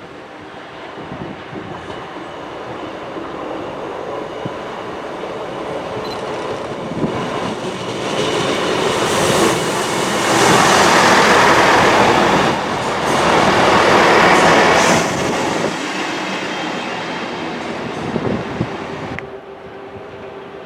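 A train passing on the line, its wheel and rail noise building up, loudest for several seconds just past the middle, then fading away.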